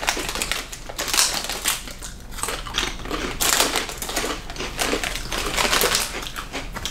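Crinkling and rustling of a foil snack bag being handled and rummaged in, a busy run of irregular crackles with no pause.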